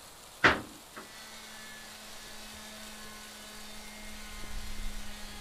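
A sharp knock, then a click as an electric palm sander is switched on; its small motor runs with a steady low hum.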